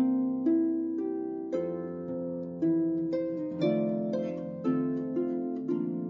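Instrumental background music: a slow melody of plucked-string notes, each starting sharply and ringing out as it fades.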